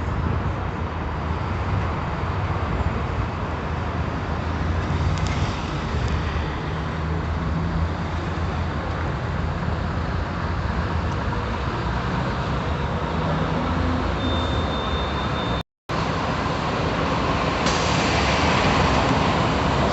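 Mercedes-Benz OF-1721 Euro 5 bus diesel engine and exhaust running with a steady low drone. The audio drops out briefly a little after the middle, and about 18 seconds in it grows louder with more hiss.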